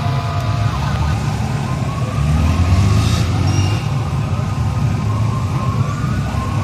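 Heavy vehicles of a police convoy driving past, engines rumbling and growing louder about two seconds in, while sirens wail faintly in rising and falling glides over them.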